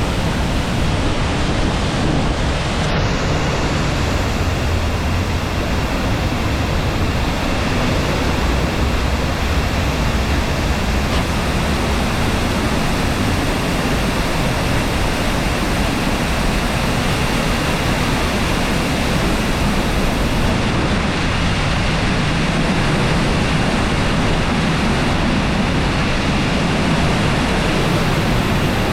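Sgwd yr Eira waterfall in spate after heavy rain: a loud, steady rush of falling water.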